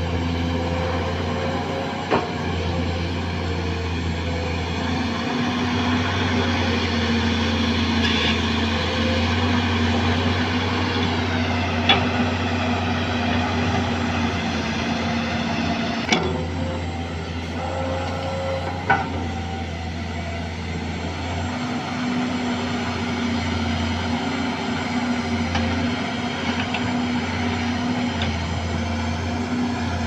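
Sany SY220C-9 hydraulic excavator's diesel engine running steadily while it digs soil, with four short sharp knocks spread through the stretch.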